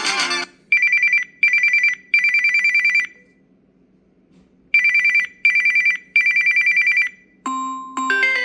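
A Samsung Galaxy A42 5G preloaded ringtone imitating an old telephone bell: a rapid electronic warble on two high pitches, rung in two groups of three (two short rings and a longer one), with a pause between the groups. The end of a previous tune fades out just before it, and a chiming next ringtone starts near the end.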